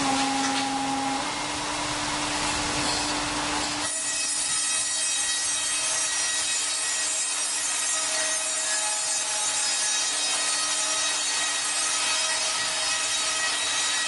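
Wood being sawn, a continuous rasping that changes abruptly about four seconds in to a thinner, hissier sound with faint steady tones running through it.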